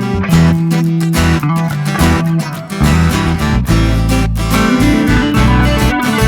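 Background music led by strummed and plucked guitar over a bass line.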